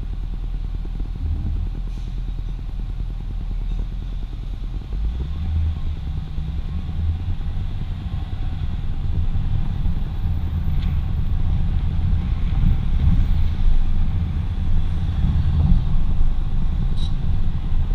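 Low rumble of a 2005 Jaguar XJ8 L's V8 and its tyres, heard from the bonnet as the car rolls slowly along a street. It grows louder about five seconds in as the car moves off.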